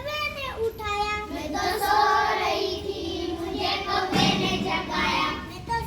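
Children singing in high voices, with held and gliding notes broken into short phrases.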